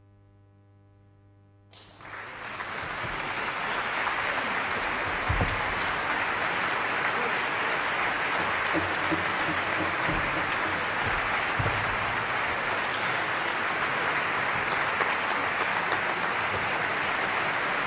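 A faint held tone, then concert-hall audience applause breaks out about two seconds in, swelling quickly and then holding steady.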